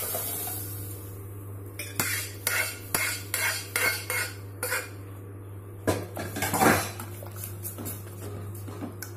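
A metal spoon knocking and scraping cooked dal and tomato out of an aluminium pressure-cooker pot into a second aluminium pot. It makes a run of clinks about twice a second, then a longer scrape and stirring a little past halfway, over a steady low hum.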